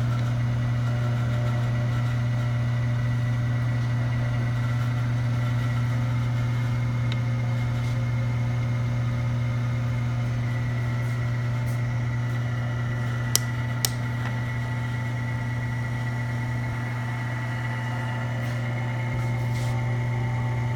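Hardinge HC turret lathe running on three-phase power, its motor and power feed giving a steady hum with faint steady whining tones above it. Two sharp clicks come a little past halfway, and a further faint tone joins at about the same time.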